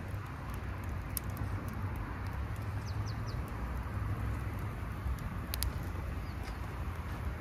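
Steady rain, with scattered sharp ticks and a few short high chirps about three seconds in.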